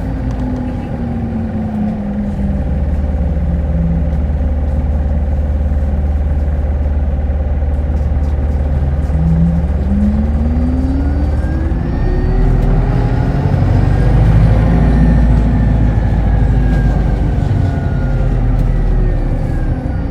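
Hino Blue Ribbon Hybrid city bus running: it slows at first, then pulls away again about nine seconds in with a whine that rises in pitch over the diesel engine's rumble. The whine eases and falls as the bus coasts near the end.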